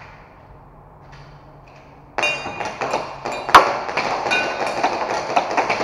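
Airsoft shooting at steel plate targets: sharp metallic pings and clatter starting suddenly about two seconds in, with one loud crack near the middle.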